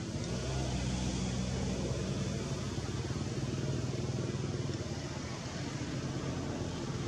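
An engine running steadily with a low hum over a hiss, getting a little louder about half a second in.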